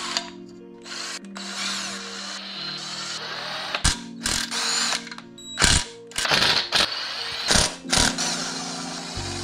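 Cordless drill with a 16 mm socket spinning out the oil pan bolts on a 1999 VW Golf's engine, its motor whirring in spurts with several sharp clacks from about four seconds in. Background music plays underneath with steady held tones.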